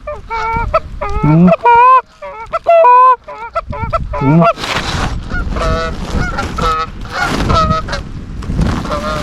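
Geese honking: a run of loud, close honks that break from a low note to a higher one, followed about halfway through by a quicker, softer string of honks.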